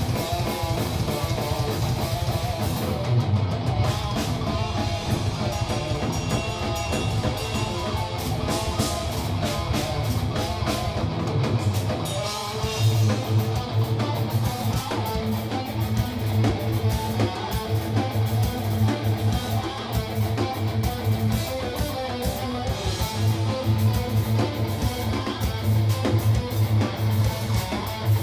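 Live metal band playing an instrumental passage: two electric guitars over a drum kit, with rapid, dense drumming and no vocals.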